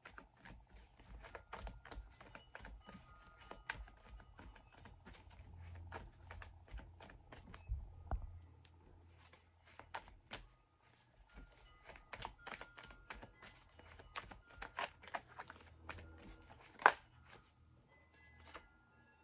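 Tarot cards being shuffled by hand: a steady patter of soft, irregular card clicks and flicks, with one sharper tap of the deck near the end.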